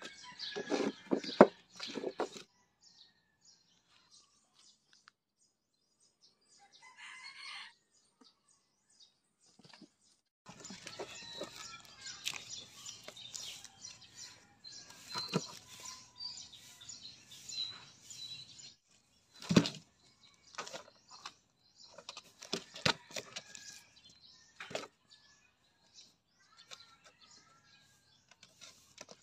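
A kitten playing on a plywood board: claws scrabbling and scratching on the wood and a long green leaf rustling, in scattered spells, with a sharp thump about two-thirds of the way through.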